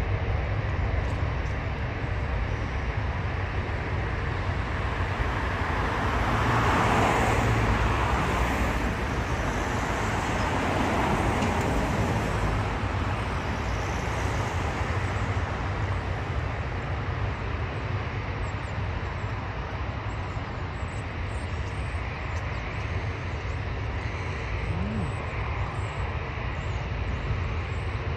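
Steady rumble of a jet airliner's engines at take-off power, mixed with road traffic close by. It grows louder for a few seconds about a quarter of the way in.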